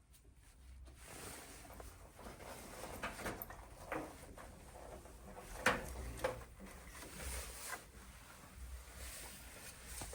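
Scattered light clicks and taps, about five of them, as old plastic crush spacers are worked out of the water heater's sheet-metal board mounting plate.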